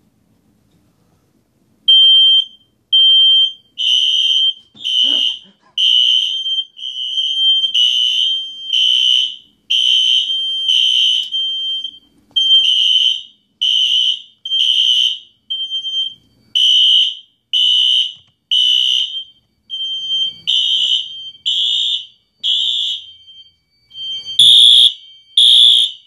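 Home fire alarm system going off, set off by incense smoke in a ceiling smoke detector. It sounds a loud, high-pitched beep about once a second, starting about two seconds in.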